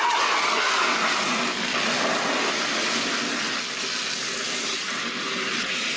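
A steady, rushing hiss like running or spraying water.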